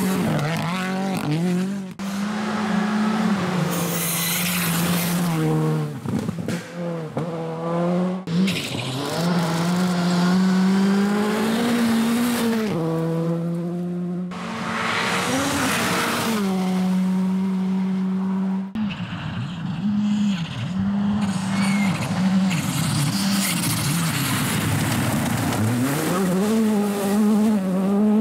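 1.6-litre turbocharged four-cylinder R5 rally cars at full throttle on gravel, engines climbing in revs and dropping back on each gear change as they pass, in several clips one after another.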